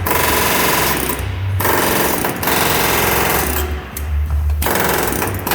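Chicago Pneumatic CP-717 long-barrel pneumatic rivet buster with a flat chisel, hammering rapidly in loud bursts as it cuts through solid stainless steel huck bolts. It stops briefly about three and a half seconds in, then starts hammering again about a second later.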